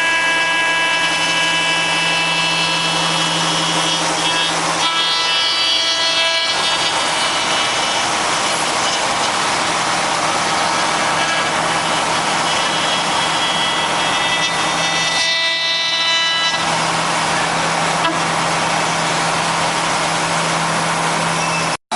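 CNC router spindle running and cutting wood: a steady multi-tone whine over continuous cutting noise, with the tones shifting a couple of times and a brief break just before the end.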